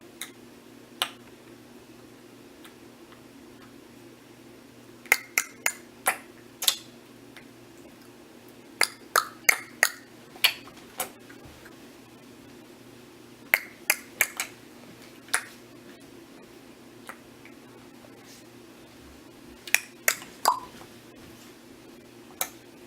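A pet's short, sharp clicking noises, some with a brief chirp-like ring, coming in quick clusters of two to five with pauses of a few seconds between.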